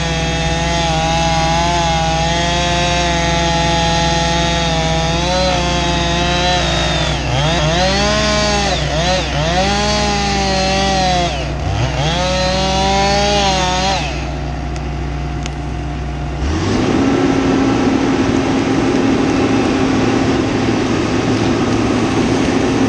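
Husqvarna 576 XP two-stroke chainsaw cutting through a large maple trunk, its pitch dipping and recovering several times as it bogs in the cut, then stopping about 14 seconds in. A couple of seconds later the tracked logging machine's engine comes up and runs steadily and louder.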